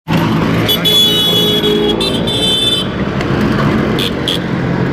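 Road traffic: motor vehicle engines running and passing in a steady rumble. A high, held tone sounds from about one to three seconds in, and two short high beeps come about four seconds in.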